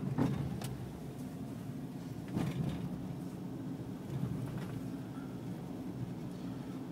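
Car engine and tyre noise heard inside the cabin while driving, a steady low hum, with a couple of brief louder sounds about a quarter second in and about two and a half seconds in.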